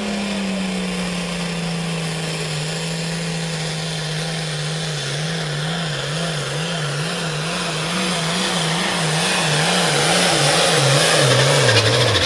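Pulling tractor's engine at full throttle hauling a weight-transfer sled down the track: a steady high engine note that starts to waver up and down about twice a second partway through and grows louder, then drops in pitch near the end.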